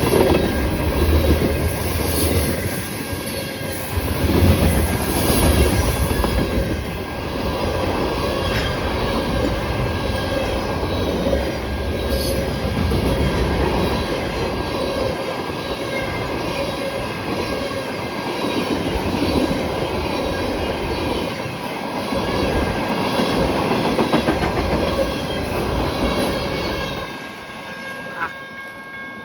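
Freight train cars rolling past at speed, the wheels clattering over the rail joints with some wheel squeal on the curve. The sound drops off sharply near the end as the last cars go by.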